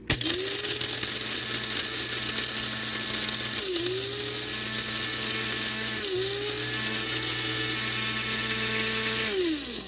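Electric coffee grinder motor running as it grinds coffee beans: it spins up at once, briefly slows twice and picks back up, then winds down near the end.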